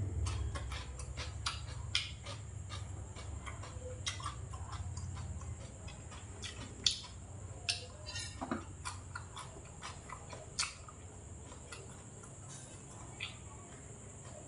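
A person eating close to the microphone: chewing, with many small irregular clicks from the mouth and from the utensils on the dishes. It is louder and fuller in the first half and thins to scattered clicks later.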